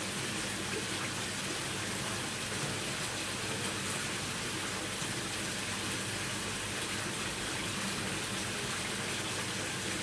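Steady, even rush of water pouring from a stainless steel cascade waterfall outlet and splashing below.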